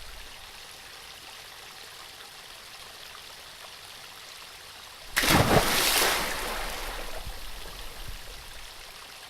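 Faint steady hiss, then about five seconds in a sudden rush of water, like a splash, that fades away over a few seconds.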